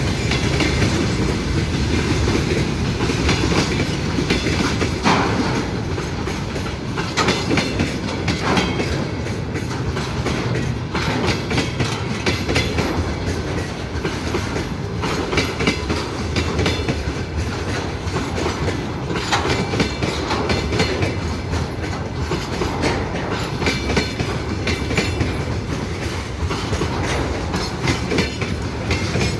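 Railway cars rolling past on the track, with a steady rumble and the wheels clattering over rail joints in irregular clusters of clicks.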